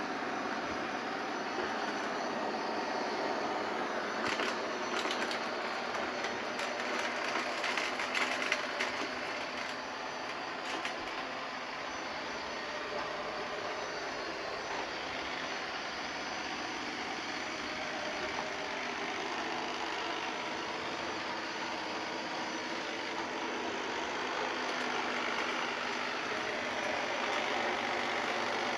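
Eufy LR30+ robot hybrid vacuum cleaner running steadily, its suction fan and brushes giving an even whirring noise, with scattered clicks and knocks between about four and eleven seconds in.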